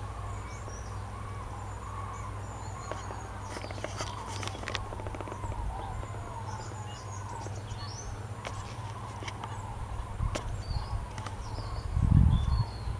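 A migrating flock of common cranes calling overhead, many short calls overlapping throughout, with a louder low thump near the end.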